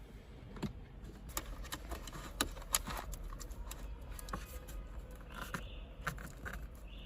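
Wiring cables being pulled and handled through an opening in a car's dashboard: scattered light clicks and rustling, busiest in the first few seconds.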